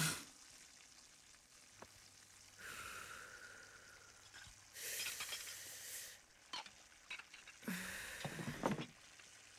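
A woman drawing on a cigarette and blowing out smoke: three long breathy exhales, the last starting with a short voiced sigh.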